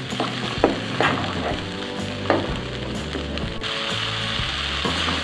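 Blended spice paste sizzling in hot oil in a non-stick frying pan while a spatula stirs and scrapes it, with a few sharp taps of the spatula on the pan. The paste is being sautéed until fully cooked.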